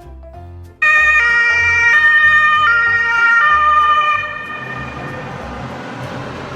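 Toy ambulance's electronic two-tone siren sounding, starting suddenly about a second in and alternating high and low notes about every 0.7 s. It gives way a little after four seconds to a steady rushing noise, with light music underneath.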